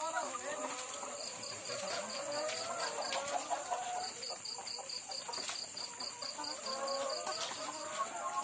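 Caged laying hens clucking and making short, murmuring calls, many birds overlapping. A high insect chirp pulses about four times a second in the background.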